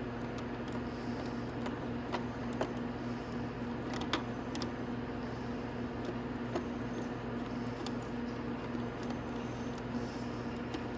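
Occasional light clicks and taps of a screwdriver working a screw out of a plastic motorcycle fairing, over a steady electrical hum in the workshop.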